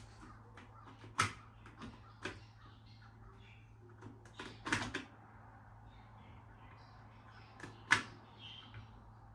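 Scattered clicks and knocks as a smoke alarm and its mounting plate are handled and fitted together, a few sharper ones standing out among small ticks, over a faint low hum.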